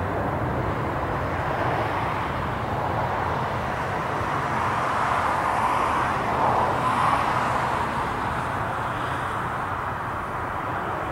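Boeing 747 jet engines running on the runway, heard from a distance as a steady rushing noise that swells a little about six to seven seconds in, then eases.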